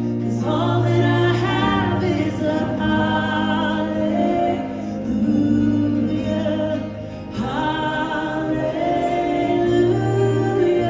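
Christian worship music: a group of voices singing over a held instrumental accompaniment. The singing dips briefly about seven seconds in, then resumes.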